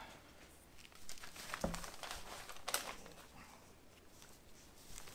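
Paper rustling and crinkling as a sheet coated with spray adhesive is handled and pressed onto a wooden cupboard door panel, with a couple of light knocks of the board on the table.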